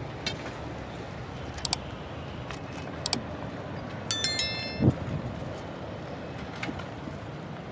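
Outdoor construction site ambience: a steady background hum of distant traffic and activity, with scattered sharp clicks and knocks, a short metallic ringing about four seconds in, and a dull thump right after it.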